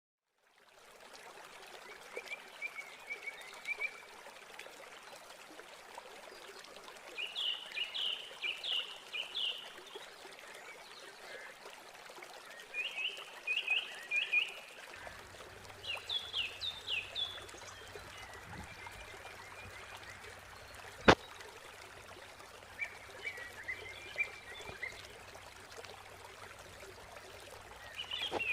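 Small birds chirping in quick bursts of several short high notes, repeating every few seconds over a steady rushing hiss. A single sharp click, the loudest sound, comes about two-thirds of the way through.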